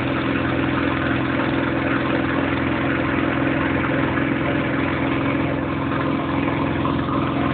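An engine running steadily at constant speed, a low, even hum with a noisy wash over it and no change in pace.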